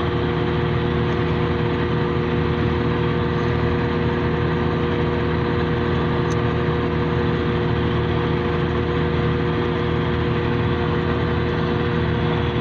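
Forage harvester running steadily at idle, an even mechanical hum with several steady tones that does not change.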